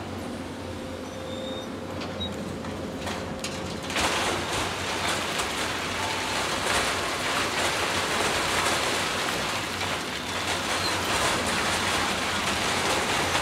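Excavator diesel engines running with a steady hum; about four seconds in a loud, dense rattling and clattering starts and carries on: rock and sand pouring from an excavator bucket into a steel dump-truck bed.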